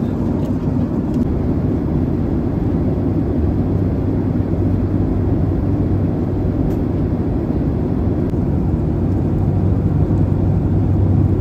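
Jet airliner cabin noise in cruise flight: a steady, even low rush with a constant low hum under it.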